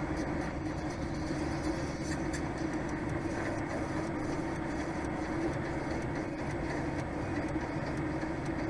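Steady running noise of a DAF XF 480 truck heard inside its cab: a constant engine drone with road and cab rumble and no change in pace.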